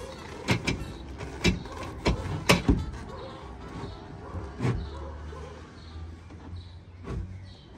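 A heavy speaker box knocking and thudding against a pickup's cargo bed as it is manoeuvred into place, about half a dozen separate bumps, the loudest about two and a half seconds in.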